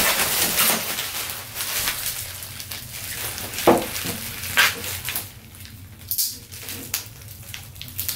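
Bubble wrap crinkling and rustling as it is pulled off a wooden landing net, with scattered sharp crackles and taps. Busy at first, then sparser in the second half.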